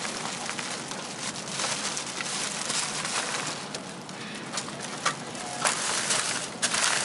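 Running noise of a Taiwan Railways Chu-Kuang Express train heard from inside the carriage: a steady rushing hiss, with a few sharp clicks and knocks near the end.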